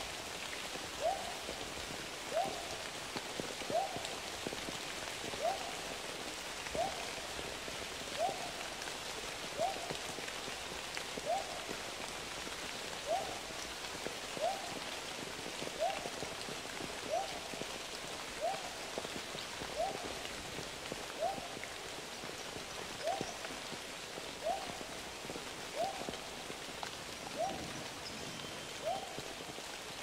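Steady watery hiss, with a short animal call, a quick upward-sweeping note, repeated evenly about every one and a half seconds.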